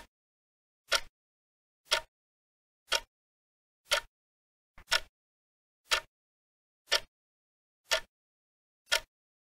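Countdown-timer tick sound effect: short, sharp ticks at an even pace of about one a second, counting down the time left to answer.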